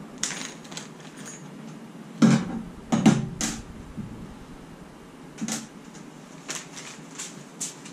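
Handling noises from a small plastic parts bag being crinkled and opened, in a series of short rustles and knocks, loudest about two to three seconds in.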